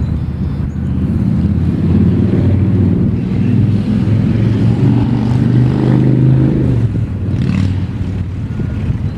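A motor vehicle's engine running close by, a steady low hum that builds to its loudest in the middle and eases off near the end.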